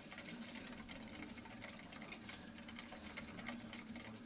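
Mongolian gerbil running in a wooden exercise wheel: the spinning wheel rumbles steadily, with fast light scratching and ticking over it.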